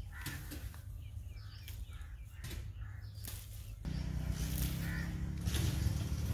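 Chilli plant leaves and stems rustling and snapping as chillies are picked by hand, with birds calling. About four seconds in, a steady low engine-like rumble starts suddenly and stays.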